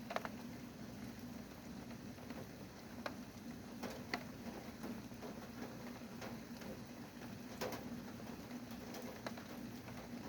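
Rain falling, a steady soft hiss with a handful of separate heavier drops tapping, about one every second or two, over a faint steady low hum.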